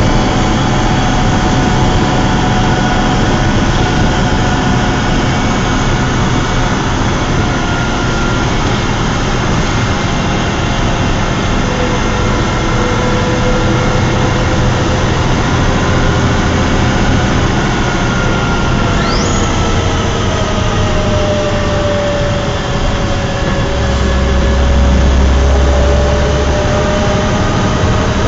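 MCW Metrobus's Cummins ISC Euro IV six-cylinder diesel engine running, a steady drone with thin whining tones that slowly rise and fall. A deeper low hum swells for a couple of seconds near the end.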